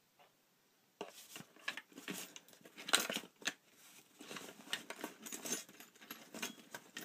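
Irregular rustling, clinking and knocking of small objects being handled and moved about, as in rummaging, starting about a second in.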